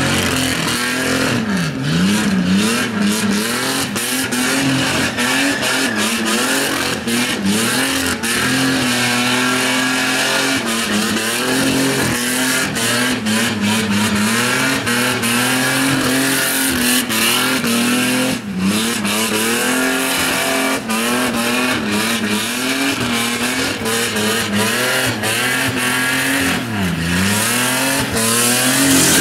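Holden VN Commodore's 3.8-litre Buick V6 held at high revs in a burnout. The revs drop and climb back a few times over the steady hiss and squeal of the spinning rear tyres.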